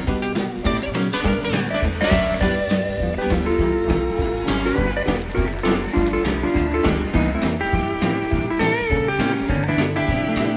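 Western swing band playing an instrumental live, with a Fender steel guitar to the fore over electric guitar and drums keeping a steady beat.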